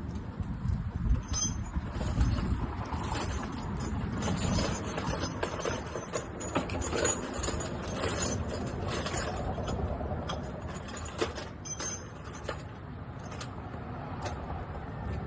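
Metal hand tools clinking and rattling, with many scattered sharp clicks, over a steady low rumble.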